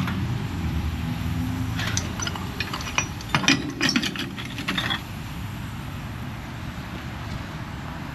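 A quick run of mechanical clicks and knocks over a low, steady rumble.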